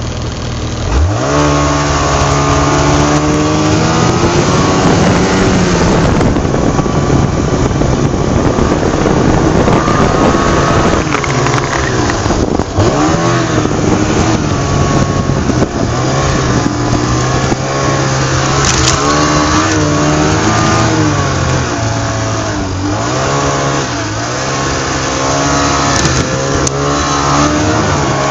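Car engine revving up and down over and over, its pitch rising and falling in waves without letting up.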